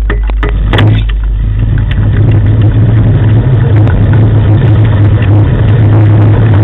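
A motor running steadily with a low drone, with scattered clicks and rattles, starting about a second in.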